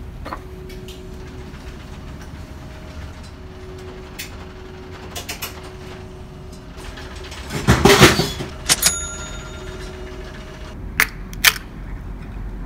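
A drink can drops into a vending machine's delivery tray with a loud clatter, followed by a couple of short metallic clinks. Near the end come two sharp clicks as the pull tab of the canned coffee is cracked open. A steady low hum runs underneath.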